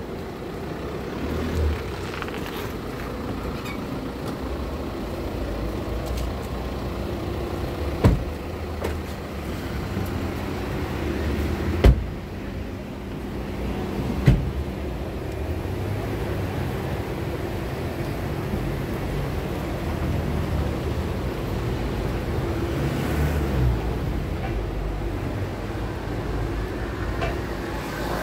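Car driving at low speed: a steady engine and road rumble, broken by three sharp knocks in the middle stretch.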